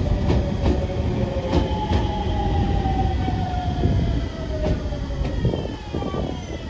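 JR Shikoku 7000 series two-car electric train rolling into a station as it arrives. Wheels rumble on the rails under a whine whose pitch falls steadily as the train slows.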